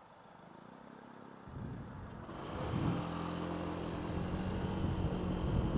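Honda Dio scooter's engine pulling away from a stop: quiet at first, then picking up about a second and a half in and settling into steady revs as the scooter gets under way, with rising road and wind noise.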